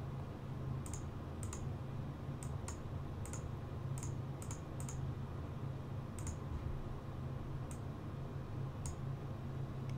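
Computer mouse clicking: about a dozen short, sharp clicks at irregular spacing, several in close pairs, over a steady low background hum.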